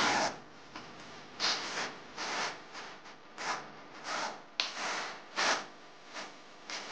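Notched steel trowel scraping and combing cement tile adhesive on a concrete floor, in a series of short strokes about every half second.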